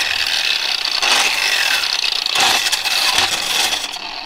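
Electric angle grinder with a wire wheel running against metal: a steady motor whine under a harsh, scratchy hiss, cleaning up a spring freshly brazed with brass. It stops near the end.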